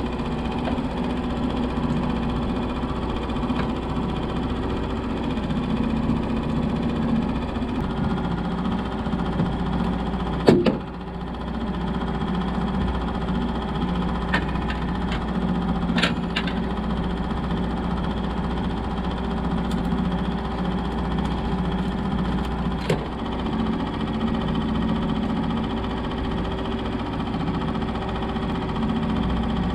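Boat's outboard motor running steadily at trolling speed. A single loud sharp knock comes about ten seconds in, with a few lighter clicks and knocks later on.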